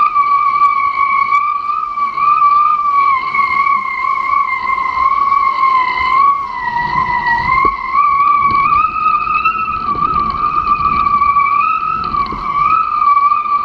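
A kitefoil rig whistling at speed: one steady high whine that wavers slightly in pitch, over rushing wind and water that grows louder about halfway through.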